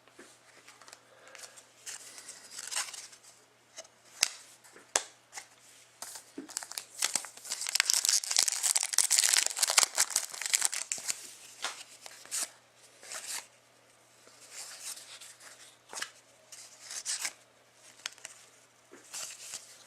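Hockey card pack wrapper crinkling and tearing, with scattered sharp clicks of cards being handled; the crinkling is densest and loudest through the middle.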